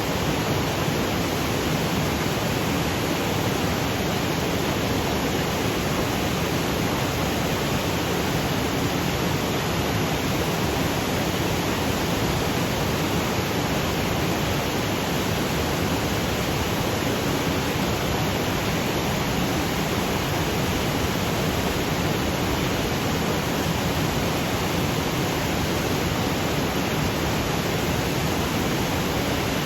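Waterfall cascading over granite boulders: a steady, even rush of water that holds the same level throughout.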